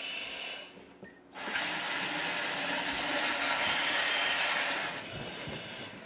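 Kitchen faucet opened and hot water running hard into a stainless steel sink, starting about a second and a half in as a steady splashing hiss and stopping suddenly near the end.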